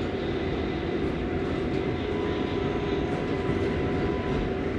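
Inside an R188 New York City subway car rolling along the track: a steady rumble of wheels on rail, with a faint steady propulsion whine above it.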